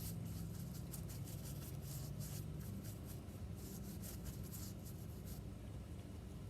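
Brush scratching over wood as wood hardener is brushed on: a run of short, irregular brushing strokes that stops about five seconds in. A low steady hum runs underneath.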